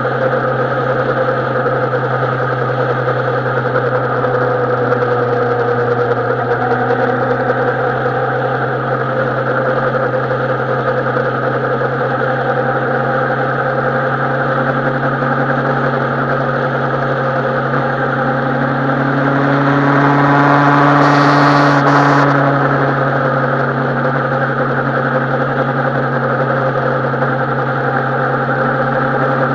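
Suzuki Bandit 650N's inline-four engine running at a steady pitch, swelling louder for a couple of seconds about two-thirds of the way through.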